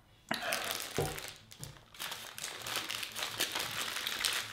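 Paper hamburger wrapper crinkling and rustling as a burger is unwrapped and handled, with a single knock about a second in.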